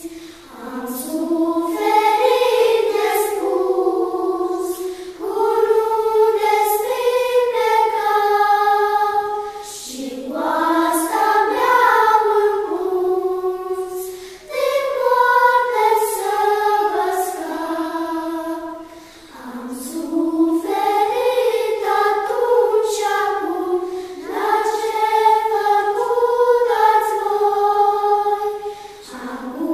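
Children's choir of schoolgirls singing unaccompanied, in phrases of a few seconds with short breaks for breath between them.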